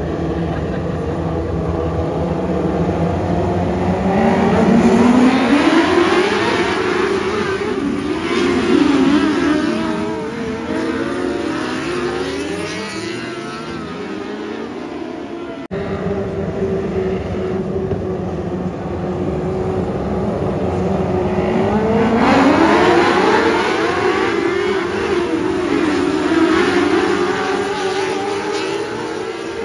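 A field of 600cc micro sprint cars, their motorcycle engines running together, revs climbing as the pack accelerates about four seconds in and again about twenty seconds in. Between the surges the engines drone at lower revs.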